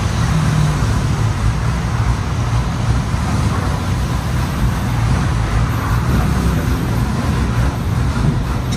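Engine of an old, roughly 40-year-old city bus running loud and steady as the bus drives, heard from inside at the open side window with wind and road noise over it.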